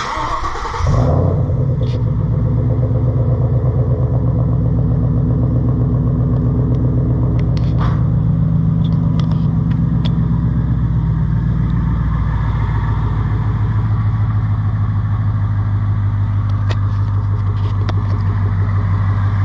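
2014 Mustang GT's 5.0-litre Coyote V8 cranked by the starter and catching about a second in, then running at a fast idle that drops to a lower, steady idle about twelve seconds in. This is the first start after an oil change, and it sounds smooth.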